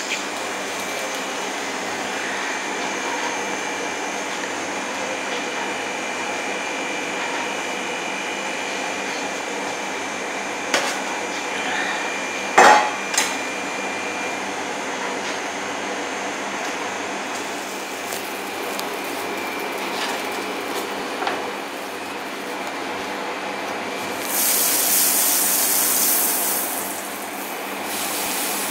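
Kitchen working noise: a steady hum of kitchen equipment with a few knocks and clatters of utensils on metal and a cutting board. The loudest are a pair of sharp knocks about halfway through, and a brief hiss comes near the end.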